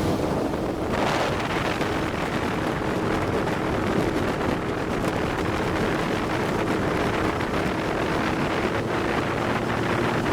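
Outboard engine of a Grand G650 rigid inflatable boat running steadily near full throttle, about 5,000 rpm, with the boat on plane; wind buffets the microphone over the rush of water against the hull.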